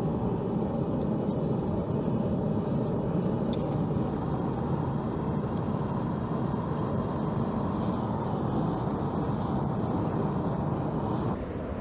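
A forge running steadily, a dense low rushing noise with no strikes in it, which drops suddenly in level about 11 seconds in.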